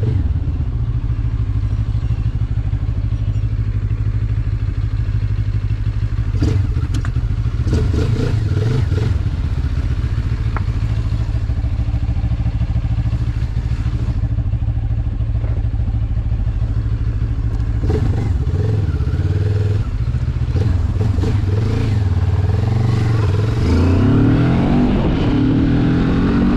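Benelli TRK 702's parallel-twin engine running steadily at low road speed, with a few short clattering knocks. From about 22 s on it revs up as the bike accelerates, its pitch rising.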